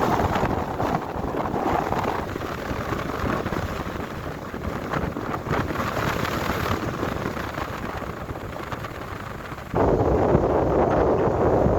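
Wind buffeting the microphone, a steady rough rumble and rush that grows suddenly louder near the end.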